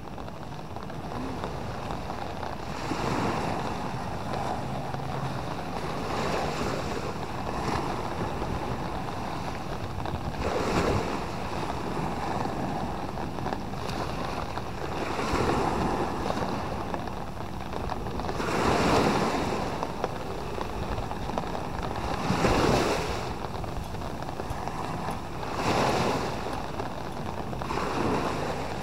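Small waves breaking and washing up a sandy beach over a steady rush of surf. A fresh swell comes in about every three seconds.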